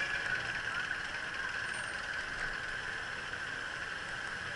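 Steady noise of city street traffic, buses and cars running, heard from a moving bicycle.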